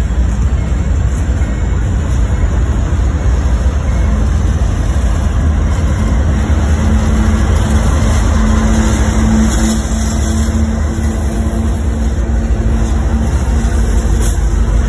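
Freight train rolling past at close range, its wheels rumbling steadily on the rails. A steady hum from the diesel-electric locomotives grows in the middle as the units come alongside.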